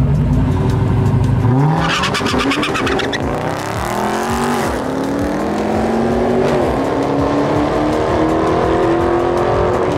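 Two drag cars launching off the start line: the engines hold a steady low drone, then about a second and a half in they rev sharply up and pull away, with a brief harsh high rasp around two seconds in. The engine note keeps climbing as the cars accelerate down the strip.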